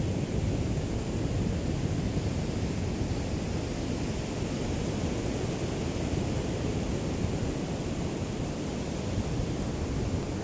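Small waves of a calm sea lapping on the shore, heard as a steady rush with a deep low rumble of breeze on the microphone.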